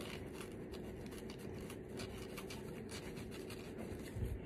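Pen scratching across paper as a word is written, faint and continuous, with a soft low bump near the end.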